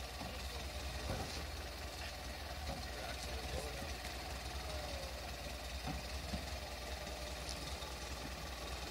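Steyr-Puch Pinzgauer off-road truck's engine running steadily at low revs as it crawls over rocks.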